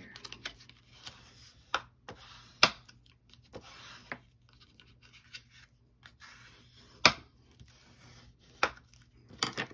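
Cardstock being scored and creased by hand: scraping strokes of the scoring tool along the paper, broken by several sharp taps, the loudest about two and a half and seven seconds in.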